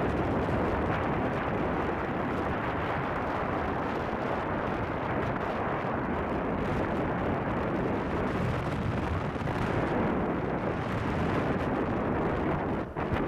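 Steady rushing wind buffeting the microphone of a camera carried by a skier moving downhill, mixed with the hiss of skis sliding over groomed snow.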